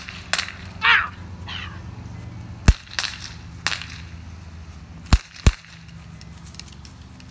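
Gunshot sound effects: a few sharp cracks, the loudest about two and a half seconds in and then two close together about five seconds in. Between them, about a second in, comes a short shout.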